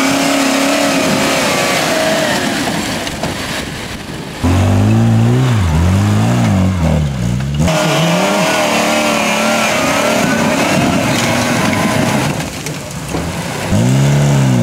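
Modified off-road trial 4x4 engines revving hard on a steep climb, the revs rising and falling again and again. The sound jumps abruptly louder about four and a half seconds in and again near the end.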